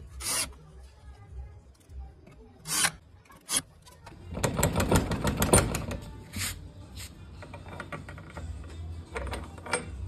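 Metal scraping and clanking from a homemade steel door latch with a bent rebar ring being worked: a few short scrapes, then a denser stretch of rubbing and clicks about four to six seconds in, and a few more scrapes near the end.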